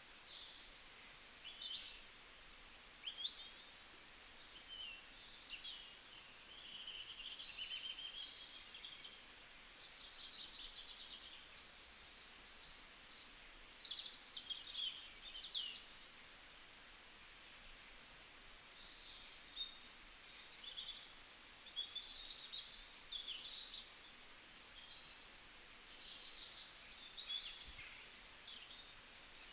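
Birds chirping and singing, many short high calls and trills overlapping, over a faint steady background hiss.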